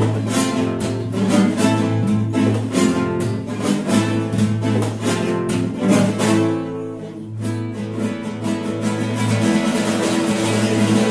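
Two classical guitars playing a duet: rapid sharp chord strokes over a low held bass note. The playing thins out briefly about seven seconds in, then picks up again.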